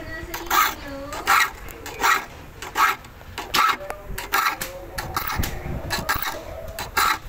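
Triangular file rasping across the teeth of a crosscut saw in short, even strokes, roughly one every three quarters of a second.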